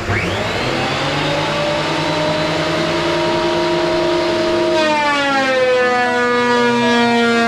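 Electric wood planer motor starting up, its whine rising quickly to full speed, then running steadily; from about five seconds in the pitch sinks slowly.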